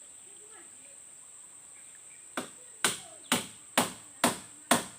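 Six sharp tool strikes at an even pace of about two a second, starting about halfway in, the first one lighter.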